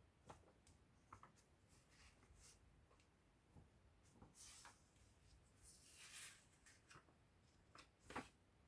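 Very faint scattered clicks and a few short rustles of hands handling an object, over near silence.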